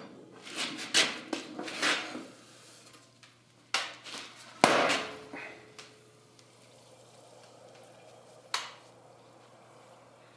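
Metal clanks and knocks as a red-hot 5160 spring-steel sword blade is drawn from the heat-treat oven. About four or five seconds in comes a sudden loud hiss as the blade is plunged straight down into quench oil to harden it. The hiss fades to a quiet simmer, with one more knock near the end.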